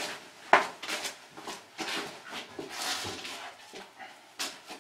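Handling noise: a few sharp clicks and knocks, the loudest about half a second in, with a soft rush of noise around three seconds.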